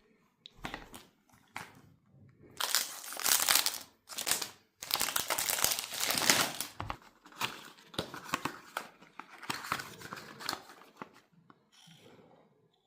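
Packaging of a new perfume box being torn open and crinkled by hand, in irregular rustling bursts that are loudest in the first half and thin out near the end.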